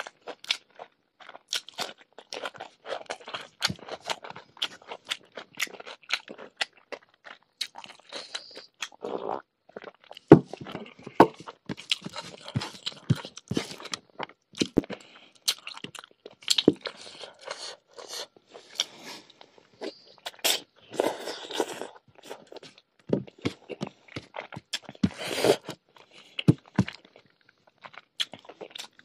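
Close-up chewing of a mouthful of rice, pork curry and raw cucumber, with many irregular crunches as the cucumber is bitten and chewed.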